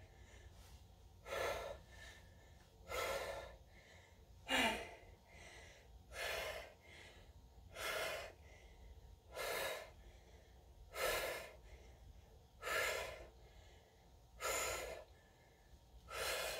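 A woman breathing hard through a set of dumbbell shoulder presses, close to a clip-on microphone: short, forceful breaths in an even rhythm, about one every second and a half, in time with the repetitions.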